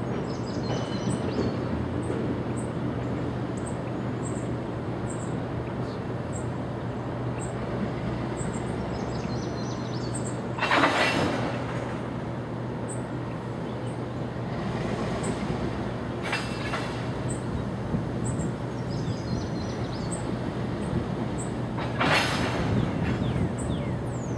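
ALCO diesel locomotive running out of sight, a steady low drone. Two brief louder bursts of hiss come about halfway through and near the end.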